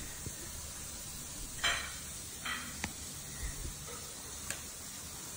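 A few short rustles and two small clicks as a cloth bib is pulled off a baby, over a steady faint hiss.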